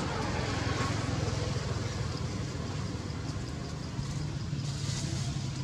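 Steady low engine hum of a motor vehicle running, a little stronger in the last second or two.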